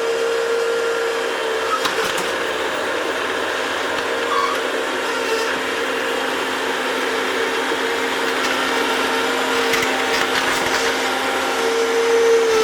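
A Bobcat's engine running steadily under load with a whine that swells and fades, as it digs another scoop.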